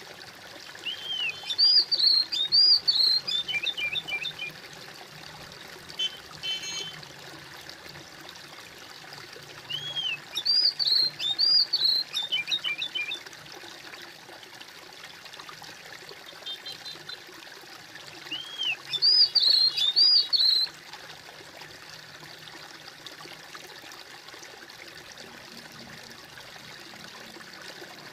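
Water trickling steadily, with a songbird singing the same short phrase of arched whistled notes and a quick trill three times, about nine seconds apart.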